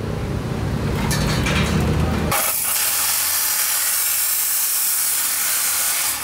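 Abrasive cut-off chop saw cutting square steel tube. A low rumble comes first, then about two seconds in the disc bites into the steel with a loud, steady, high grinding hiss that drops away at the very end.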